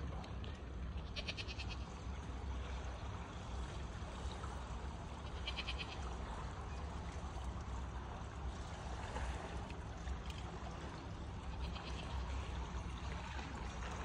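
Steady outdoor ambient noise with a low rumble, broken three times by a brief, rapid high-pitched trill.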